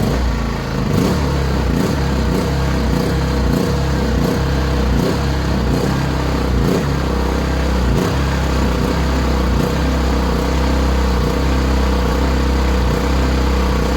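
WEN 4500-watt inverter generator's small petrol engine running just after its first start, on choke, with a steady low hum that wavers slightly and irregularly.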